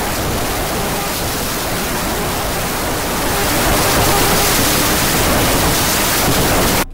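Loud, steady rushing hiss of broad noise, like static or pouring water, with no pitch or rhythm. It grows a little louder about three seconds in and cuts off abruptly at the very end.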